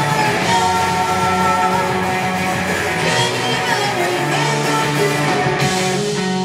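Live punk rock band playing loud, with electric guitars and a voice singing.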